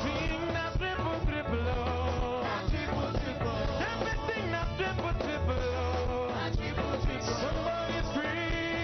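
Church worship band playing an upbeat song, with bass, guitar and faint singing.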